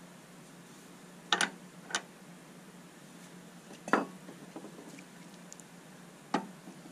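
Metal parts clinking and knocking against steel as they are handled and set down: a quick double clink about a second and a half in, another soon after, the loudest knock about four seconds in, and one more near the end.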